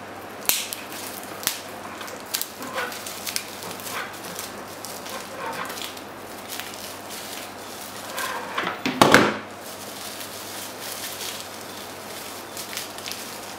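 Clear plastic bag crinkling and rustling as a power adapter is unwrapped from it, with scattered clicks and handling noises. There is a louder burst of handling noise about nine seconds in.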